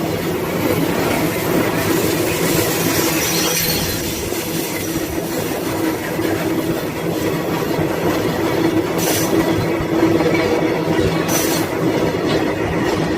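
Train running on the rails: a steady rumble with a humming tone, and two sharp metallic clanks in the second half.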